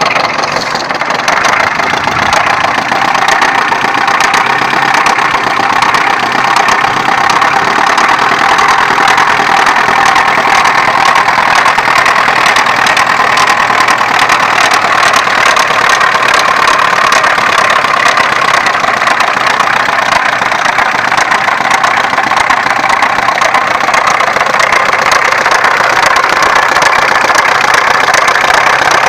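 Opel X20XEV 2.0-litre 16-valve four-cylinder petrol engine idling steadily with a rapid, regular knock.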